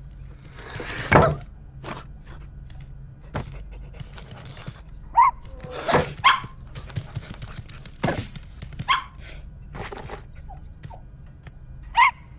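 Cartoon dog sound effects: a loud thunk about a second in, then lighter knocks and about four short, high dog yips, the last near the end.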